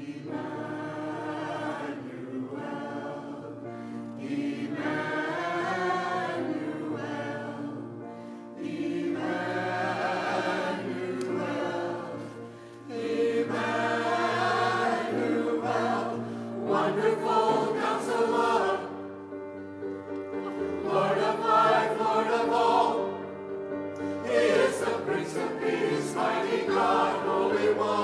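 Mixed choir of men's and women's voices singing together. The voices enter at the start and go on in several phrases with short breaks, growing louder in the second half.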